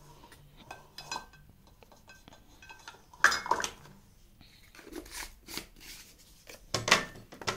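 A spoon and kitchen dishes clinking and tapping as salt is measured out, a few scattered sharp clinks with the loudest about three seconds in and near the end.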